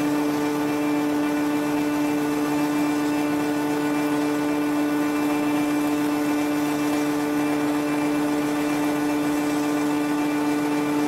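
Thread rolling machine running with its two grooved dies turning: a steady mechanical drone with one strong low hum and several higher overtones over a light hiss, unchanging throughout.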